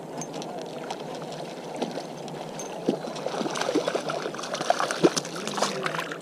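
Water lapping and splashing close by as a hooked trout thrashes at the surface while it is reeled in. The splashes come more often from about three seconds in.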